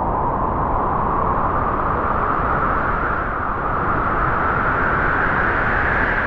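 A gust of wind blowing steadily, its hiss slowly rising in pitch.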